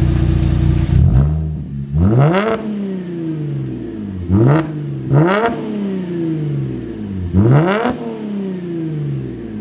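Holden Commodore SV6's 3.6-litre V6 revved through its aftermarket exhaust. The note is held steady at first and drops back about a second in. It is then blipped four times, each rev rising sharply and sinking back toward idle over a second or two.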